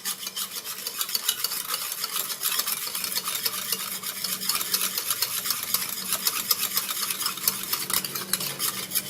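A utensil stirring milk, pastry-cream powder and sugar briskly in a bowl, in rapid, even strokes, to dissolve the sugar before the cream is cooked.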